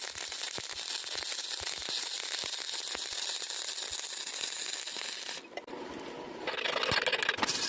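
Electric arc welding: a steady crackling sizzle as a continuous bead is run joining a pipe to sheet metal. The arc breaks off about five and a half seconds in and strikes up again about a second later.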